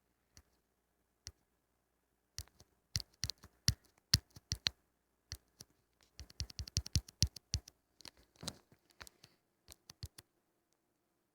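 Irregular sharp clicks and taps, coming in two quick flurries a few seconds apart with scattered single clicks between.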